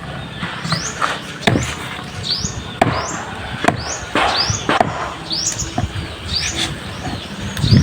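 A small bird chirping over and over, one short rising chirp a little more often than once a second, with scattered sharp knocks in between.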